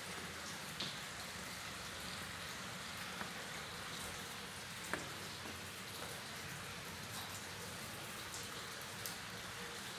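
Steady patter of water drops, with a few louder single drips, the clearest about five seconds in.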